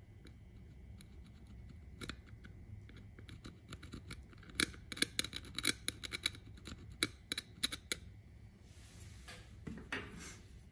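Small flathead screwdriver tip scraping and picking at an LED's pad on an LED bulb's circuit board: a quick irregular run of sharp metal-on-board clicks starting about two seconds in, densest in the middle. A brief rustle follows near the end as the bulb is handled.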